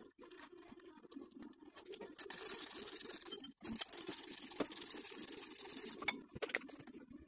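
Ratchet wrench spun rapidly while tightening the mounting bolts of a new power steering pump: two runs of fast rasping clicks, about a second and then about two seconds long, followed by a single sharp metallic click.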